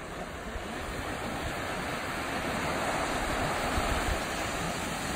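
Small ocean waves breaking and washing up a sandy beach: a steady surf hiss that swells through the middle.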